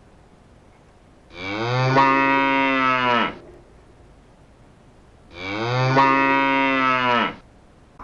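A cow mooing twice, each moo a long, steady call of about two seconds that drops in pitch as it ends.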